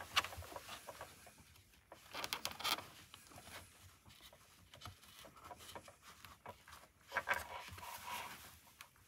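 Handling noises as intercom cables are tucked into a motorcycle helmet's liner: soft rustling and small scattered clicks, in two short busier spells.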